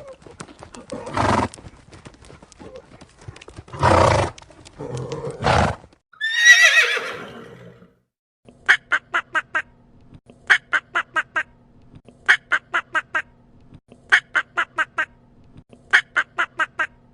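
A horse gives three loud, noisy snorts and then a whinny that falls in pitch about six seconds in. From about eight and a half seconds a different animal calls in rapid bursts of about six short notes, a burst every couple of seconds, over a low steady hum.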